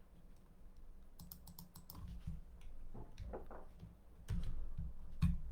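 Typing on a computer keyboard: a quick run of key clicks about a second in, then scattered clicks.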